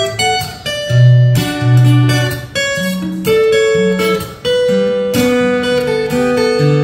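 Solo acoustic guitar played fingerstyle: plucked bass notes under a ringing melody line, each note starting sharply and sustaining.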